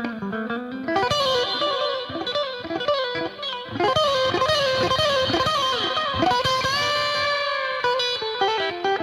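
Music: a lead line of sliding, bending notes over a backing, with one long held note from about six to eight seconds in.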